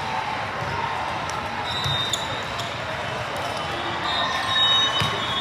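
Volleyball being played on an indoor court: the ball is struck or bounced sharply twice, about three seconds apart, among short high sneaker squeaks and a steady murmur of voices.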